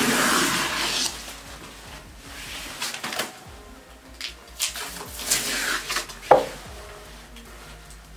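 Black wallpaper being peeled off a wall by hand: paper tearing and rustling in irregular bursts, loudest in the first second and again in a sharp rip about six seconds in.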